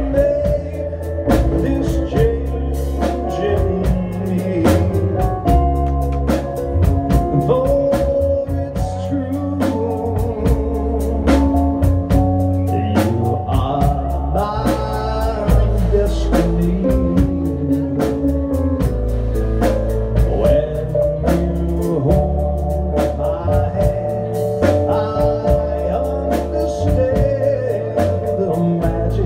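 Live band playing a country song: a drum kit keeps a steady beat under electric bass, electric guitar and keyboard.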